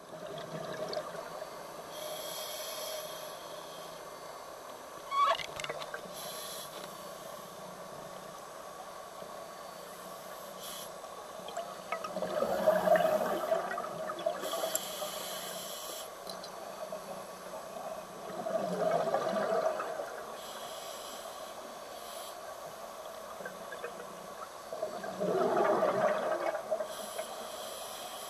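Scuba diver breathing through a regulator, heard underwater: exhaled bubbles swell up three times, about six or seven seconds apart, with short high hisses between, over a steady hum.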